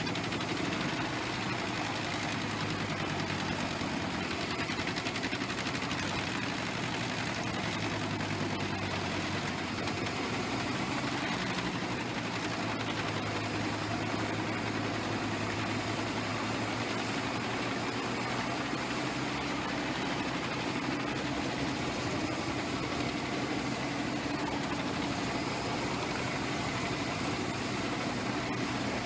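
Diesel engine of a large wood chipper running steadily, an even, unchanging hum.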